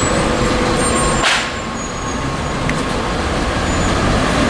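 Street traffic noise, with a short hiss about a second in.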